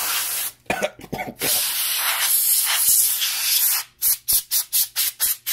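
Aerosol spray can with an extension straw spraying a computer logic board to clean it: long steady hissing sprays, then a run of quick short bursts, about four a second, near the end.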